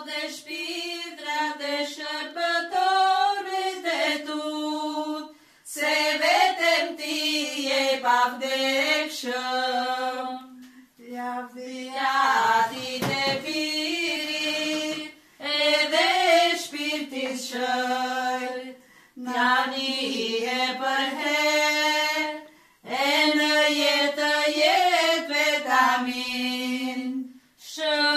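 Women's voices singing a traditional Arbëreshë song unaccompanied, in held phrases of a few seconds each with short breaks between them.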